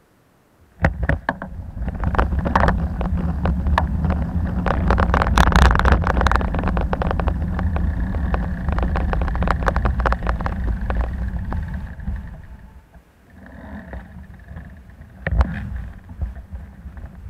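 Bicycle ride heard through an action camera's microphone: heavy wind rumble with rapid rattling clicks and knocks, starting suddenly under a second in. It stays loud until about twelve seconds in, then eases, with one sharp knock near the end.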